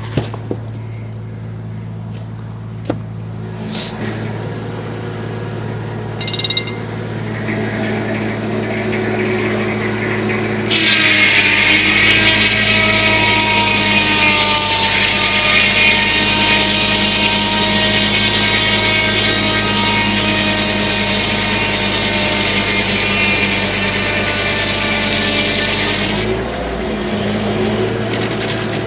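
Homemade circular sawmill driven off a tractor's PTO: the tractor engine hums steadily, with a few light knocks before the cut. About eleven seconds in, the circular blade bites into a log and saws for about fifteen seconds with a loud, high ringing hiss, then drops back to the engine hum as it leaves the cut.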